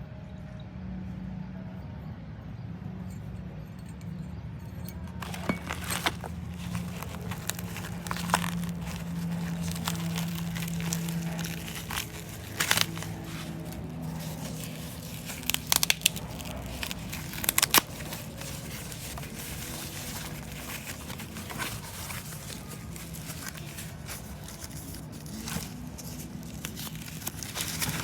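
Plastic packaging crinkling and tearing as a parcel is unboxed, with sharp crackles and clicks starting about five seconds in, over a steady low hum.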